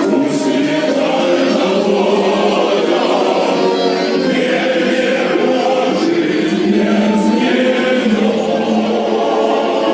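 A choir singing a song, many voices together at a steady loud level.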